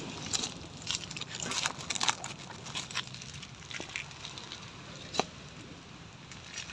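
Cooked rice being scooped out of a metal cooking pot onto a plate: scattered light scrapes and clinks, with one sharp click about five seconds in.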